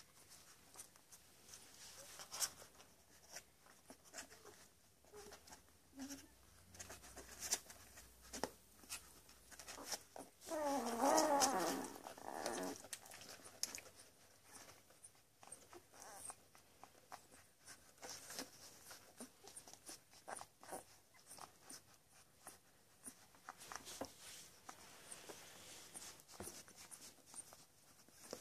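Ten-day-old Labrador puppies nursing: soft wet suckling clicks, smacks and shuffling throughout. Near the middle, one puppy lets out a whining cry lasting about two seconds.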